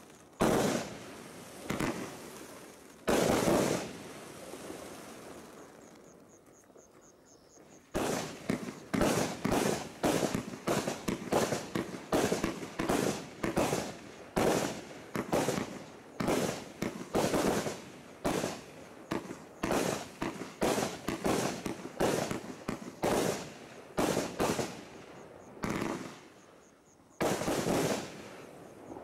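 30-shot fan barrage firework cakes firing. A few shots go off in the first seconds, then there is a short lull. From about eight seconds in comes a rapid string of shots, two or three a second, each fading off briefly, and one last shot comes after a short pause near the end.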